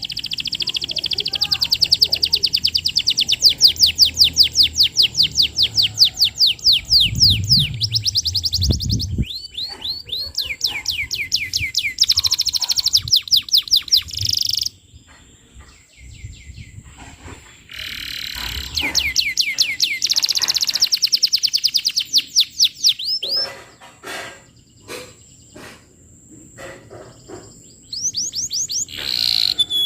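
Domestic canary singing: long, fast trills of repeated high notes, each phrase lasting several seconds, separated by short pauses with a few scattered clicks.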